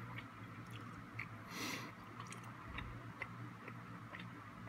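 Faint chewing: a person eating chunks of goat curry, with small scattered mouth clicks and a short breathy hiss about one and a half seconds in.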